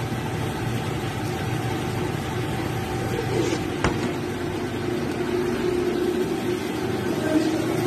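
A steady motor hum from a kitchen machine running, with one short tick about four seconds in.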